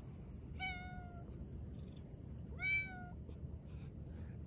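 A cat meowing twice, short meows about two seconds apart; the second is louder and rises then falls in pitch.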